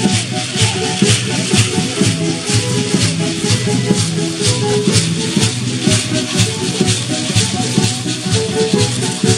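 Many hand-held gourd rattles (sonajas) shaken together in a steady dance rhythm by a troupe of danzantes, over music with a melody line.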